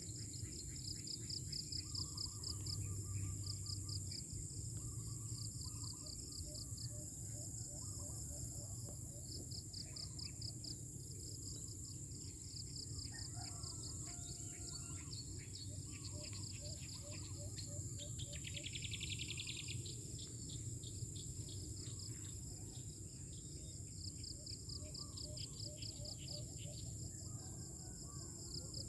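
Outdoor chorus of insects: a steady high-pitched drone with rapid pulsed cricket chirping over it, joined now and then by short bird calls. A low rumble runs underneath.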